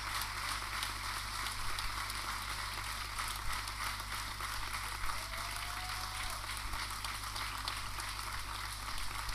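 Audience applauding steadily, many hands clapping at once, over a low steady electrical hum.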